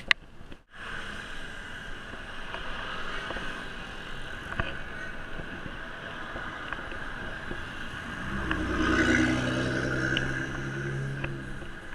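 Wind and road noise on a handlebar action camera while cycling, with a sharp click and a brief dropout just after the start. About eight and a half seconds in, a motor vehicle's engine comes close and grows louder for about three seconds, then fades.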